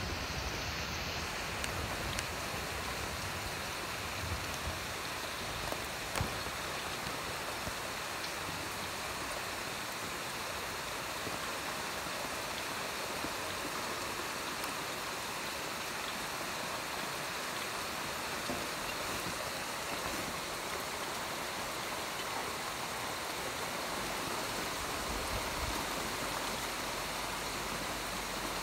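Heavy thunderstorm rain falling steadily, an even wash of downpour noise with a few small taps now and then.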